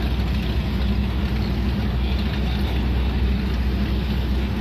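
Pickup truck engines running steadily, one of them towing a boat on its trailer up the launch ramp.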